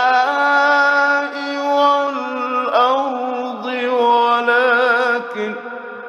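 A man reciting the Quran in the melodic mujawwad style, drawing a phrase out into long, ornamented held notes that waver and shift in pitch. The voice fades away into a reverberant tail near the end.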